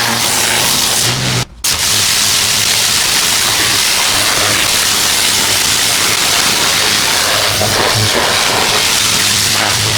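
Pressure washer with a turbo nozzle spraying concrete: a loud, steady hiss of water over the low hum of the machine's running motor. The spray cuts out briefly about a second and a half in, then resumes.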